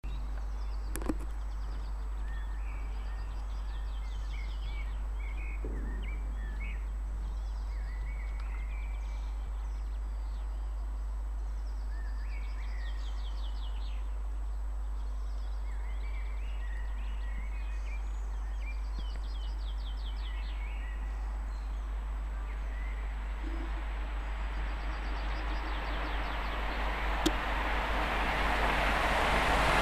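Small birds singing and calling repeatedly over a steady low hum. From about 24 seconds in, the approaching Britannia class steam locomotive 70013 'Oliver Cromwell' rises out of it as a rushing noise that grows steadily louder to the end.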